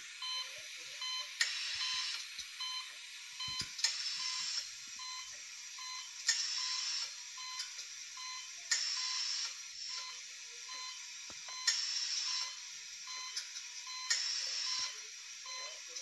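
Background music: a soft, thin, high-pitched loop with short repeated tones, its phrase coming round about every two and a half seconds.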